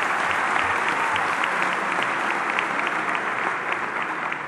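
Large audience applauding, a dense mass of hand claps that eases slightly toward the end.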